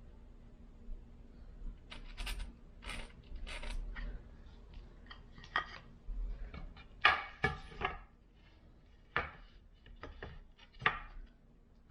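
Irregular knocks, clacks and rubbing of hard objects being handled, with two louder knocks about seven and eleven seconds in.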